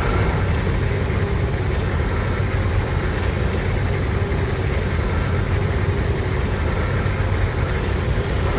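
Monster sound effect: a loud, steady, deep rumble, heaviest in the bass, held without a break.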